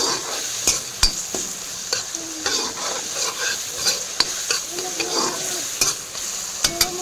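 Chopped tomatoes sizzling in hot oil in a large kadhai, a steady frying hiss, while a metal spatula stirs and scrapes against the pan with frequent clicks and taps.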